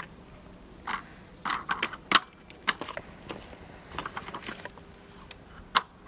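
Irregular plastic clicks and rattles from a child's tricycle as a toddler fiddles with its handlebar and fittings.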